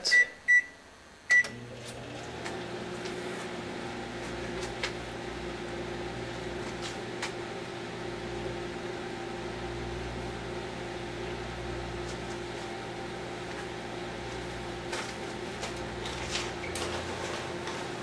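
Microwave oven keypad beeping three times as the cooking time is set and started, then the oven running with a steady hum. A few faint clicks come now and then over the hum.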